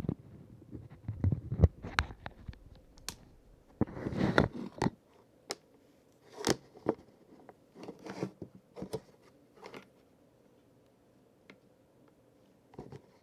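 Handling noise as a microphone is moved close to a small pocket multimeter: irregular clicks, taps and rubbing, dying down to a few faint clicks after about ten seconds.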